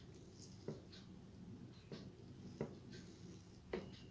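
Fingers picking up fried water spinach and working it into rice on a plate: faint rustling and crackling of the greens with three sharper little clicks against the plate.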